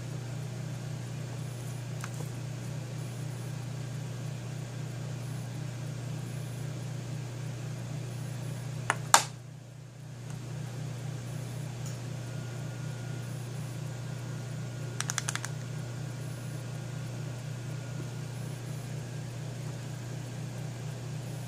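A steady low hum throughout, with one sharp click about nine seconds in and a short rattle of small clicks around fifteen seconds from handling the stamping tools.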